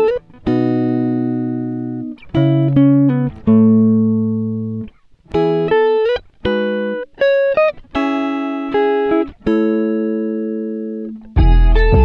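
Background music: a slow melody of plucked string notes, each one ringing out and fading. A louder, deeper part comes in near the end.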